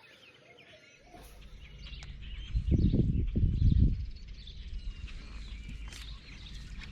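Birds chirping in the background while wind rumbles on the microphone, with a strong gust from about two and a half to four seconds in.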